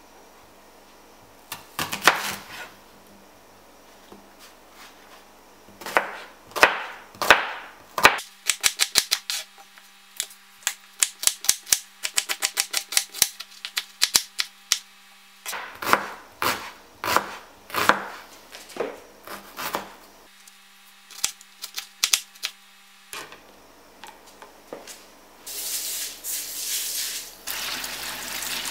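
A kitchen knife chopping onion on a plastic cutting board: single cuts, then fast runs of quick chops, stopping about 23 seconds in. Near the end, tap water runs onto red lentils in a mesh sieve as a hand rubs them clean.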